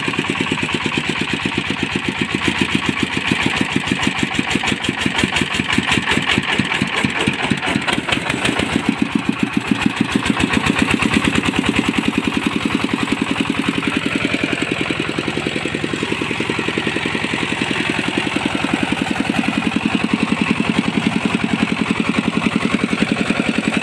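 Single-cylinder diesel engine of a mobile rice-hulling vehicle running with an even pulsing beat.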